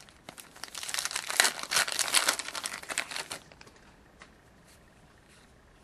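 A hockey card pack's wrapper being torn open and crinkled for about three seconds, then going quiet.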